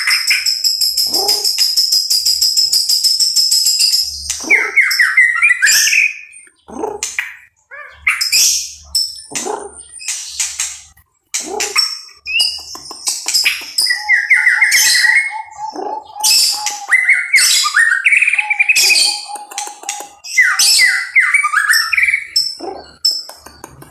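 Caged songbird singing loudly. A long, high, dense trill fills the first few seconds, followed by varied whistled phrases, quick chattering notes and sharp clicks with short pauses between them.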